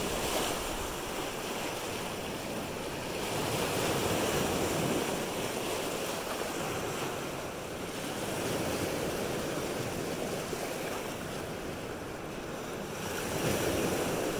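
Lake Michigan surf washing onto an icy shoreline, a steady wash that swells every four to five seconds as the waves come in, with wind.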